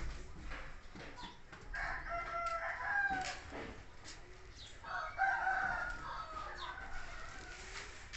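Rooster crowing twice, each crow lasting under two seconds, about three seconds apart.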